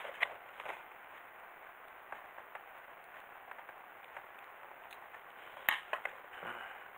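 Small, sharp plastic clicks and taps from a Robi 2 servo motor's casing being handled and worked at with a thin screwdriver, a few at a time, with the loudest click about five and a half seconds in followed by a brief scuff.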